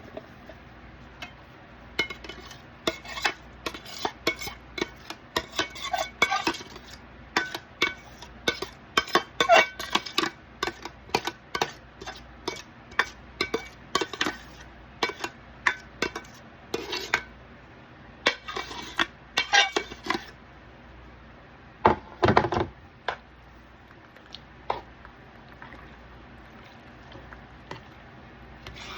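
A utensil stirring macaroni and cheese sauce in a cast iron skillet, with repeated irregular clinks and scrapes against the pan. The clatter stops at about two-thirds of the way through, after one longer, louder scrape.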